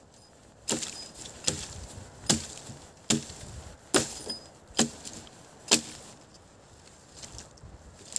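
A wooden branch being chopped through with a chopping tool: seven sharp blows about 0.8 s apart, stopping after about six seconds.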